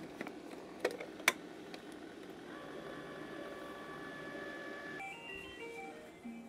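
Two sharp plastic clicks in the first second and a half as the clear lid is locked onto the Breville ice cream maker and the machine is started. Then a faint steady electronic tone, and from about five seconds in a simple stepped, beep-like melody.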